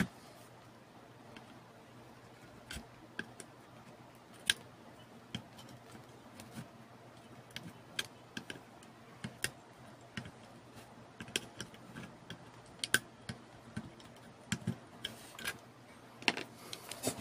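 Irregular light clicks and taps as a soldering iron and fingers work on a power-supply circuit board, desoldering a choke coil and pulling it free, over a faint steady low hum.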